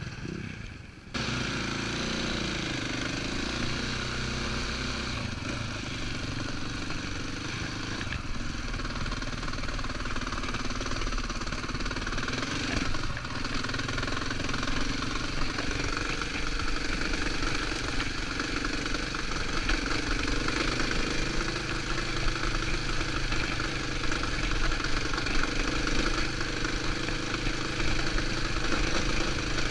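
KTM trail motorcycle engine running at low, changing revs as the bike is ridden up a rough stony lane, heard from on the bike. The sound begins about a second in after a short break and grows slightly louder later on.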